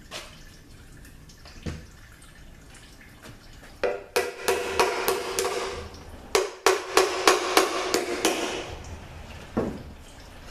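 A hammer with an orange head rapping on the metal oil pan of a 66RFE automatic transmission. About a dozen quick blows come in two runs, starting about four seconds in and ending past eight seconds, and each blow sets the pan ringing with a steady tone.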